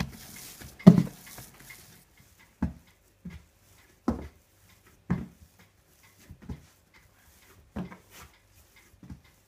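Stiff hazelnut shortbread dough being kneaded by hand on a floured wooden tabletop: a dull thump every second or so as the heavy dough is pressed and pushed onto the board, with a rustle in the first two seconds.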